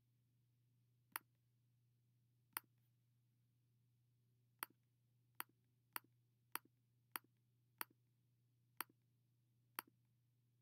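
About ten sharp single computer clicks at uneven intervals, each one placing a point of a polyline being drawn, over a faint steady low hum.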